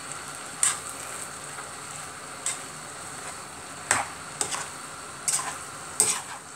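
Food sizzling in a cooking pot while being stirred. A utensil scrapes and knocks against the pot about six times at irregular intervals.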